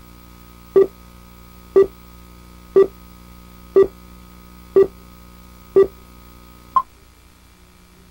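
Broadcast countdown beeps on a commercial's slate: a short tone once a second, six times, then a shorter, higher-pitched beep. A steady low hum runs under the beeps and stops with the last one.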